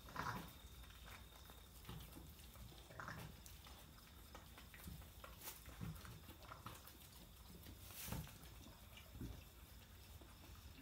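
A ewe in labour: faint, occasional low grunts and shuffling sounds, about six short separate ones spread a second or more apart, the loudest near the end.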